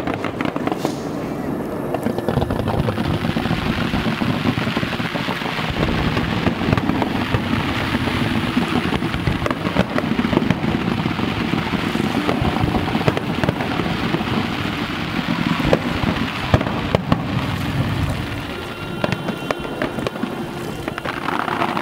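Fireworks display: a dense, continuous barrage of shell bursts, with bangs and crackling following one another without a break.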